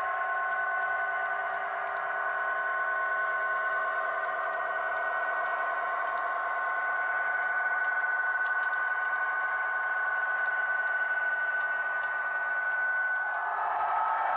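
Model train running past: a steady whine from the locomotive's motor over the rolling of container wagon wheels on the track. The sound changes about 13 seconds in, with a new tone that rises slightly.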